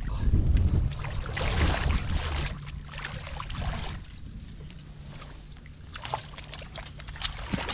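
Wind buffeting the microphone for about the first three seconds, then quieter splashing and sloshing as hands work in shallow muddy water.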